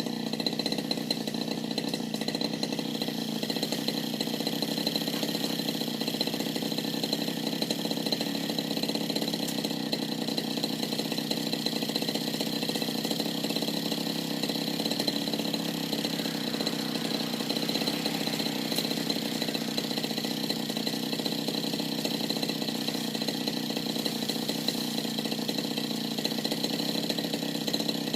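Petrol brush cutter (grass-cutting machine) engine running steadily at a constant speed.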